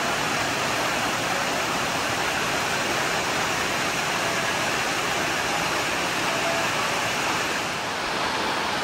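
Cascading water of Dunn's River Falls rushing steadily over rock.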